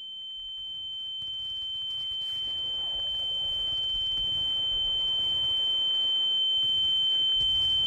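A single steady high-pitched ringing tone that swells slowly louder, the film's ear-ringing effect for a soldier dazed by a nearby explosion.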